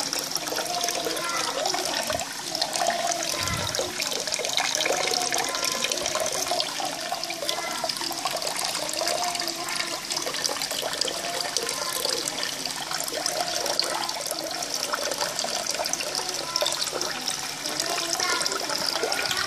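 Water running steadily into a tub of koi, splashing and bubbling as fresh water is added to acclimatise the fish.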